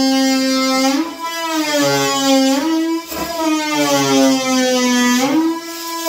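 Cordless oscillating multi-tool cutting through a wooden floorboard: a steady buzzing whine whose pitch sags and recovers a few times as the blade's load changes.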